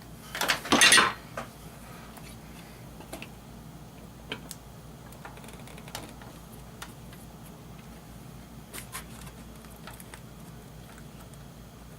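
Hand-and-tool handling noise while dismantling a stereo receiver: a brief loud clatter about half a second in, then scattered small clicks and taps.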